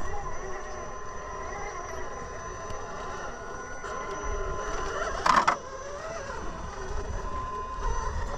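Element Ecto RC rock crawler's electric motor and gear drivetrain whining as it crawls, the pitch wavering with the throttle. About five seconds in there is a short, loud noise.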